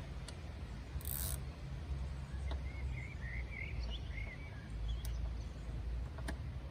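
Outdoor background: a steady low rumble with a few light clicks and a brief hiss about a second in, and a bird chirping for a moment in the middle.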